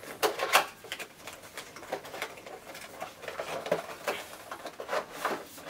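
Cardboard box being opened by hand and the clear plastic tray inside slid out: irregular rustling, scraping and small clicks.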